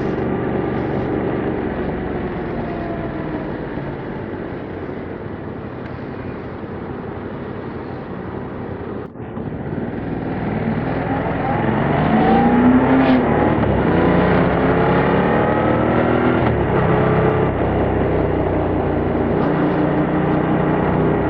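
Yamaha MT-07's parallel-twin engine through its stock exhaust while riding. The engine note falls as the bike slows, breaks off for an instant about nine seconds in, then climbs louder in pitch as it accelerates, with several steps that fit gear shifts.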